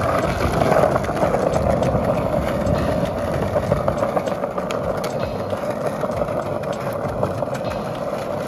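Skateboard wheels rolling steadily over stone paving slabs: a continuous rumble with a few light clicks from the board.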